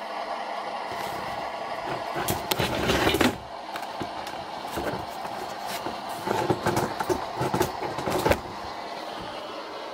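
Steady static hiss, with irregular rustling, knocks and clatter of someone moving about and handling a camera tripod, in two busy spells about two and six seconds in.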